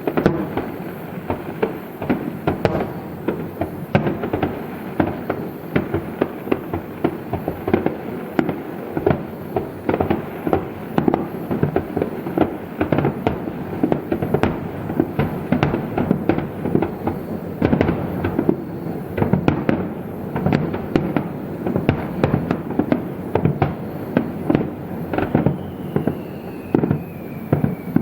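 Fireworks display at full tilt: a dense, continuous barrage of rapid bangs and bursts from many shells going off together. A thin falling whistle sounds near the end.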